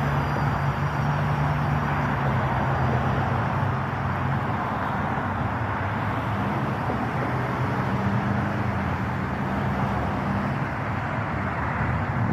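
Steady road traffic and vehicle noise, with a low engine hum that shifts in pitch a couple of times.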